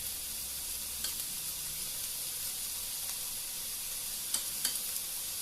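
Chopped onions frying in oil in a pan: a steady sizzle, with a few light ticks about a second in and twice near the end.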